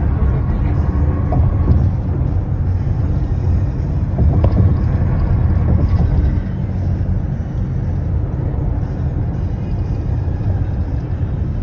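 Steady low rumble of a car cruising at highway speed, heard from inside the cabin: tyre and road noise mixed with engine drone.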